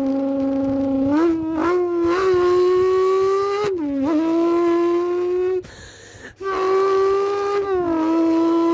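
A person imitating a V10 supercar engine with the mouth: a held buzzing tone that steps up in pitch a few times around the first two seconds like gear changes, dips twice, and breaks off briefly about six seconds in before carrying on.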